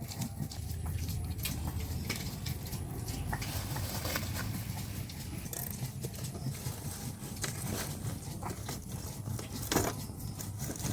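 Ginger and garlic being ground by hand on a grinding stone: irregular scraping and rubbing with small clicks and knocks.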